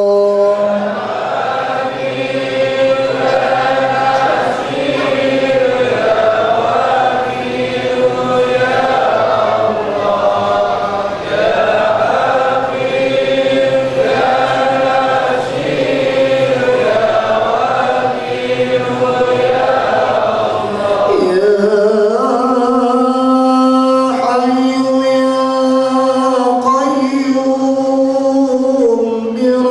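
Men chanting Islamic dhikr together in unison, a melodic phrase repeated over and over. About 21 seconds in, the chant breaks briefly and a new phrase begins on a steadier, held pitch.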